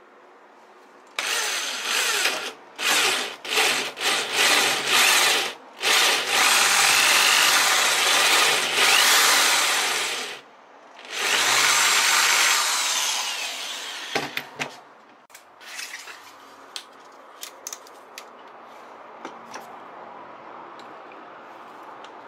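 Power drill boring into wood with a Forstner bit: several short bursts of the motor cutting, then two longer runs of a few seconds each, the last one winding down. Light taps and clicks of handling follow.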